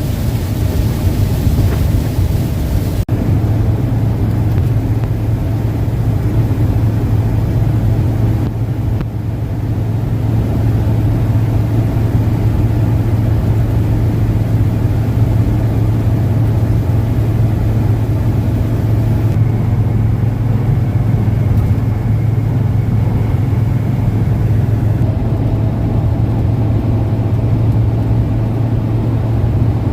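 A steady low road-and-engine drone from a moving van towing a travel trailer. A loud hiss of wind and rain cuts off abruptly about three seconds in, leaving the drone alone.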